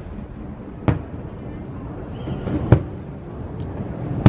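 Aerial fireworks shells bursting: two sharp bangs, about a second in and nearly three seconds in, with another just at the end.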